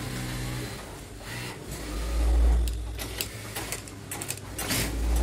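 Industrial sewing machines: a steady motor hum in the first second, then two low rumbles and a run of sharp clicks and rattles.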